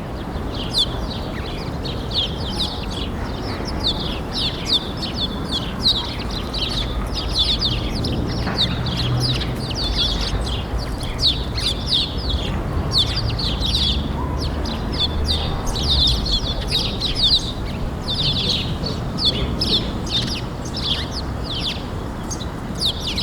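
Many small birds chirping continuously, short rapid calls overlapping one another, over a steady low background rumble.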